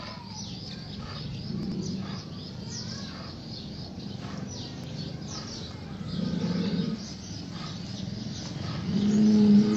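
Small birds chirping throughout, with a low, pitched groan three times: around two seconds in, around six seconds in, and loudest near the end. The groans fit the sick water buffalo, a pneumonia case.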